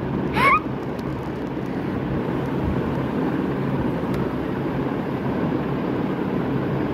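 A steady rumbling background noise, with one short rising vocal sound about half a second in.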